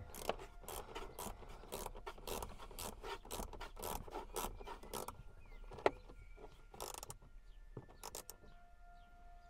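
Screws of a car door speaker being tightened with a hand wrench: a run of quick rasping clicks for about five seconds, then a few separate clicks.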